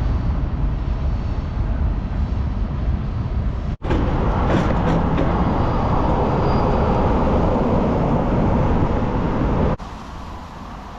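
Wind buffeting the microphone while riding a bicycle, with low rumble. The sound cuts off abruptly about four seconds in and again near ten seconds in, and is quieter after the second cut.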